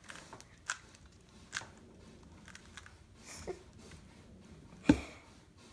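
Rubik's cube being turned by hand: a few scattered plastic clicks as the layers are twisted, with one louder knock near the end.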